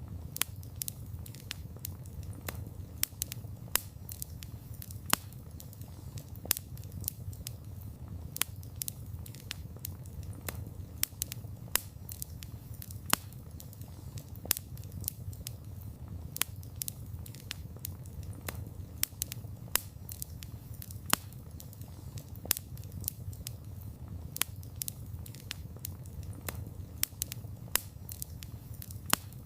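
Campfire of burning wood crackling, with sharp irregular pops a few times a second over a low, steady rumble of the flames.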